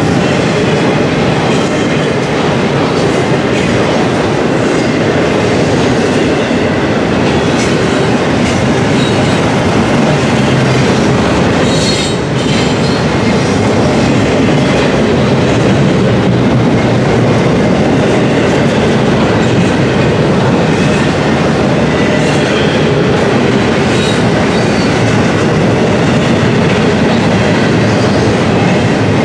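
Double-stack intermodal freight cars rolling past at close range: a loud, steady rumble of steel wheels on the rails that does not let up.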